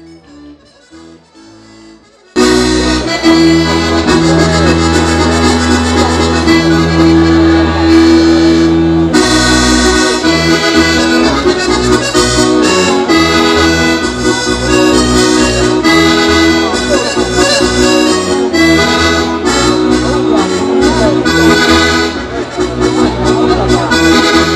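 Accordion playing a Sardinian folk dance tune through a PA, with sustained bass chords under the melody; it starts abruptly about two seconds in after a quiet opening.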